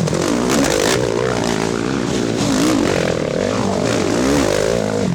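Racing ATV engines revving under throttle, several at once, with their pitch rising and falling over and over as the riders work the throttle.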